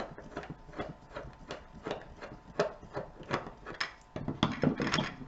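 Screwdriver turning out the small brass terminal screws of a plastic junction box: a run of light clicks and scrapes. Near the end come a few louder knocks of small metal parts and the tool going down on the wooden desk.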